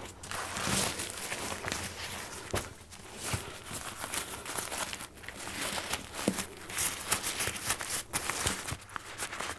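Nylon fabric of a Granite Gear compression dry sack rustling and crinkling as its compression lid is worked down over the stuffed sleeping bag and the straps are handled, with scattered short scrapes and taps.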